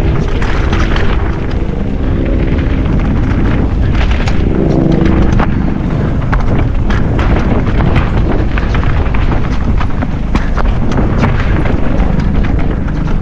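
Mountain bike descending a rough enduro trail, heard through an action camera: a steady heavy rumble of wind buffeting the microphone and tyres on the ground, with frequent sharp knocks and rattles as the bike rides over rocks and roots.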